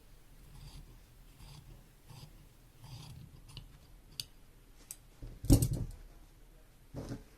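Quiet handling sounds of sewing work: soft rustles of cloth repeating roughly every three quarters of a second, a few sharp clicks, and a louder knock about five and a half seconds in.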